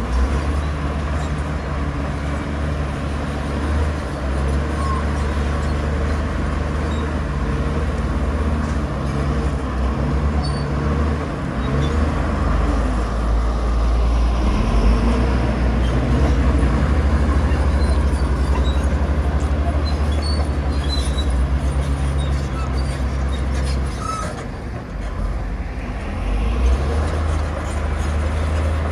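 Komatsu bulldozer's diesel engine running steadily under load while pushing soil, with a dip in the engine note late on before it picks up again.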